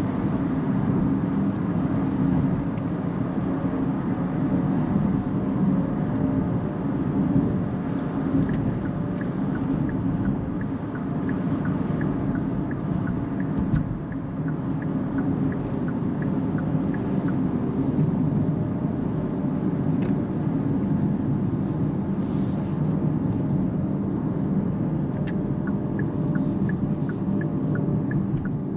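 Steady low rumble of tyre and road noise inside the cabin of a Kia EV6 AWD GT-Line electric car cruising at motorway speed, with no engine sound. A faint, regular ticking comes and goes.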